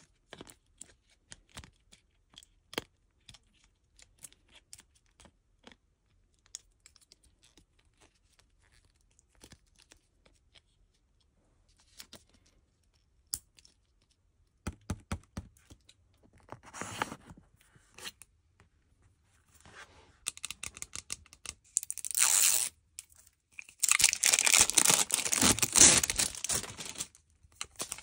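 Light plastic clicks and taps as small doll pieces are handled and a cape is fitted onto a small plastic doll. About two-thirds of the way in, loud tearing and crinkling of foil and plastic packaging starts and keeps going to the end, the loudest part.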